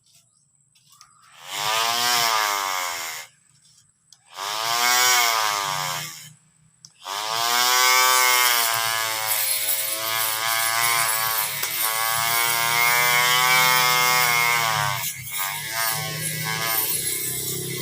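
Cordless electric lawn mower's motor whirring: it spins up and winds down twice in short runs of about two seconds, then starts a third time and keeps running steadily, its pitch wavering near the end.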